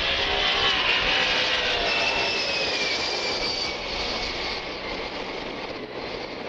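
Boeing 747SP's four turbofan engines at takeoff power as the jetliner climbs out after liftoff. A loud jet roar carries a whine that falls in pitch as the plane passes, and the sound eases off somewhat after a few seconds.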